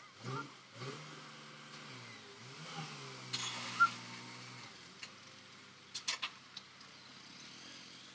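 Crane's engine running with a steady hum, its pitch dipping briefly, then stopping about four and a half seconds in. A few sharp clicks and knocks follow.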